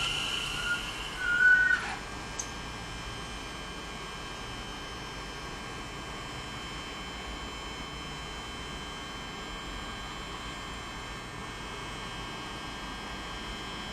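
Class 730 electric multiple unit standing at the platform: a brief high squeal, loudest about a second and a half in, that stops about two seconds in. After it comes a steady electrical hum with several faint high whining tones from the unit's equipment.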